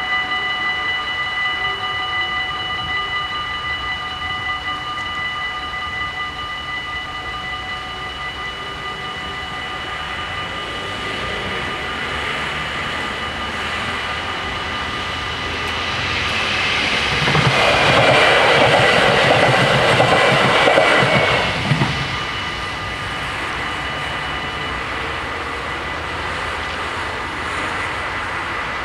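Several level-crossing bells ringing steadily, some falling silent partway through. About sixteen seconds in, an NS SLT Sprinter electric multiple unit passes over the crossing for around six seconds. Its rush of wheel and rail noise, with a rhythmic wheel clatter, is the loudest part.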